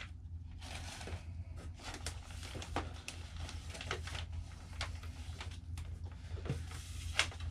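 Plastic packaging rustling and crinkling, with scattered small clicks and knocks, as a plastic-bagged built-up balsa wing half is handled and lifted out of a cardboard box. A steady low hum runs underneath.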